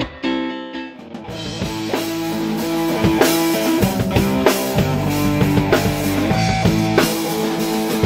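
A rock band playing, with electric guitar, bass guitar and a drum kit; the full band comes in about a second in after a brief dip, with drum hits keeping the beat.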